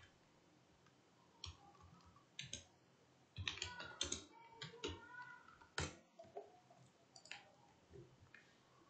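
Faint computer keyboard keystrokes in short irregular runs with pauses between.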